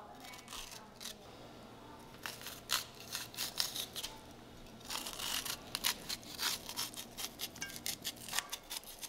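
A knife shaving sweet corn kernels off the cob: an irregular run of short, crisp scraping cuts, starting about two and a half seconds in.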